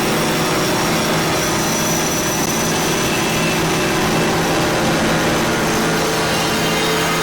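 Sonified planetary magnetosphere sound: a steady, dense hissing drone with several faint held tones running through it.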